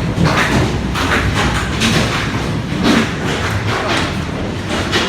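Heavy hail coming down: a dense, loud clatter of hailstones striking hard surfaces, with frequent irregular heavier thuds standing out from it.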